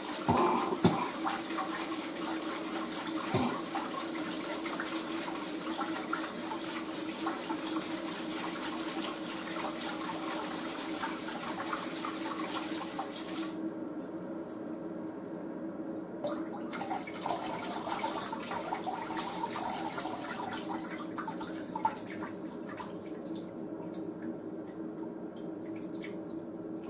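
Kitchen tap running into the sink while a pot is rinsed under it, with a couple of knocks of the pot in the first few seconds. The full rush of water cuts back about halfway through and the flow runs on weaker and uneven.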